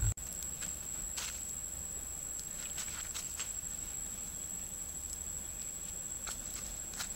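Scattered sharp crackles and pops from a wood fire heating a bamboo tube of chicken soup, over a steady high-pitched insect drone and a faint low rumble.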